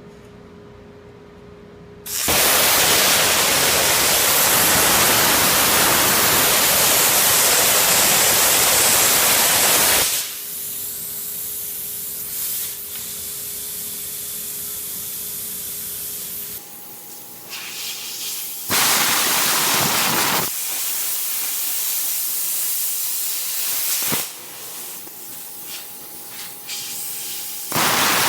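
Plasma cutter cutting steel plate with a loud, steady hiss that starts and stops abruptly. Each cut is followed by a quieter rush of the torch's post-flow air. There are two cuts, one long and one short, and a third begins at the very end.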